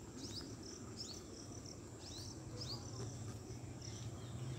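Faint, short, high chirps repeating every half second or so, over a low steady hum that grows a little louder near the end.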